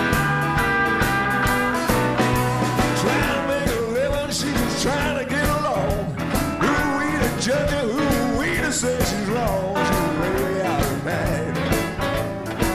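A band playing a song with piano, guitar and drums, with a singer's voice coming in about four seconds in.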